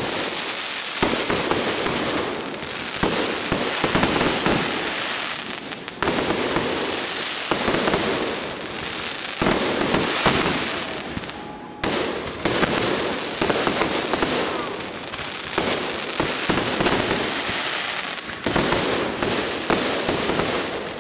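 1.3G 'Meteor Shower' fireworks cake firing a continuous barrage: dense rapid popping and crackling from overlapping aerial bursts, with several sudden louder surges.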